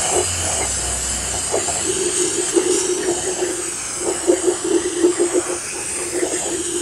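Aerosol can of brake cleaner spraying in a long steady hiss onto a cast-iron engine block deck and into its cylinder bores, with a rough fluttering rattle underneath from about a second and a half in.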